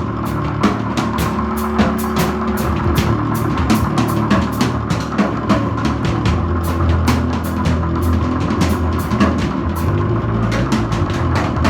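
Music with a drum kit: quick, evenly spaced cymbal or hi-hat strokes about four a second over a held low bass and sustained chords.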